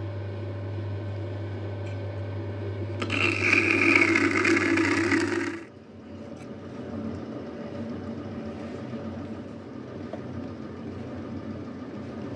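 Potter's wheel running with a steady low hum while a clay pot is shaped by hand. About three seconds in, a louder rough hiss comes in for a few seconds. The hum then cuts off suddenly, and a quieter, lower running sound continues.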